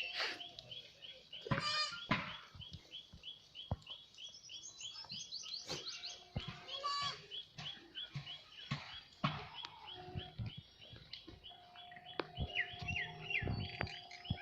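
Small birds chirping: one short chirp repeated quickly, about four times a second, with a few louder trilled calls over it. Scattered light knocks, and a steady two-note hum comes in about three-quarters of the way through.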